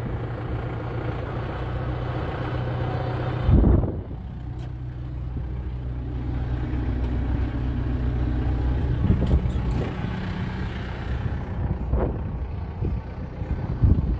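Farm vehicle's engine running steadily, with a loud knock about four seconds in and a few lighter knocks later.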